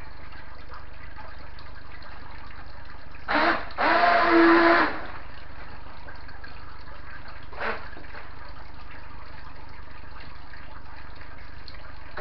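Small electric motor of a toy RC racing boat, powered by a two-cell lithium pack, whirring in short throttle bursts as the boat churns through water. There is a brief blip about three seconds in, then a louder burst lasting about a second, and another short blip a few seconds later, over a steady low hiss.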